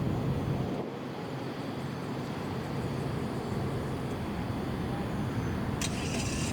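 Steady low rumble of jet aircraft engines on approach, with a short crackle about six seconds in.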